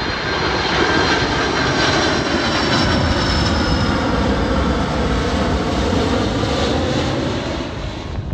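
A Boeing 747-400 freighter's four GE CF6-80C2 turbofans roar loudly as it flies low overhead on landing approach, gear down. Thin whining tones ride on the rush and slide gradually down in pitch as the jet passes.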